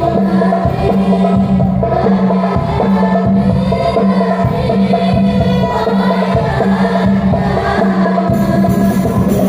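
Devotional song: singing over instrumental backing, with a low held note underneath that breaks off and comes back every second or so.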